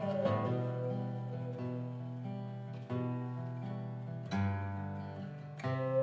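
Acoustic instrumental music: plucked string chords come in four times, under a held higher note that slides down right at the start and returns near the end.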